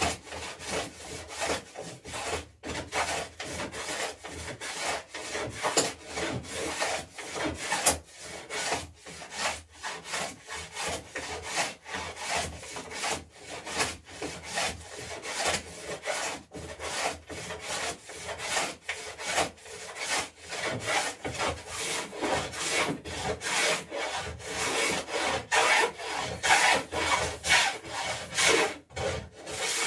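Hand tool shaving a bevel along the edge of a wooden garboard plank in quick, repeated strokes, about two a second, louder over the last few seconds.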